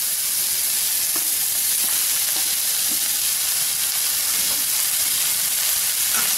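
Sliced onions, carrots and green capsicum sizzling steadily in oil in a stainless steel kadai, being stir-fried until the onions turn brown, with a few light taps of a steel spatula against the pan.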